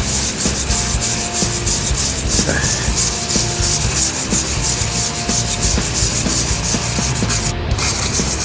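Sandpaper rubbed by hand over body filler and paint on a pickup's fender lip, in quick back-and-forth scratchy strokes, with one short break near the end.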